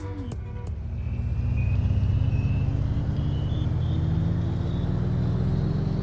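An engine running steadily, its low hum growing louder over the first couple of seconds and rising slowly in pitch as it speeds up.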